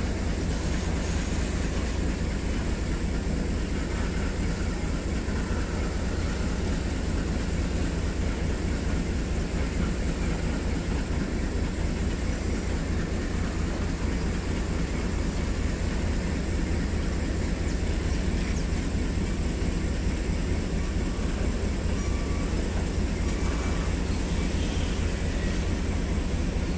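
Freight train in motion: a steady, unbroken rumble of wheels on the rails.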